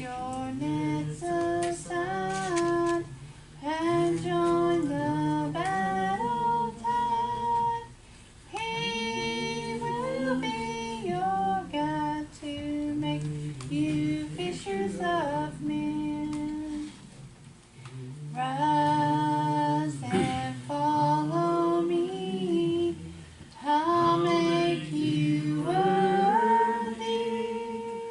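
A woman singing a gospel hymn solo, in sustained phrases with short breaths between them.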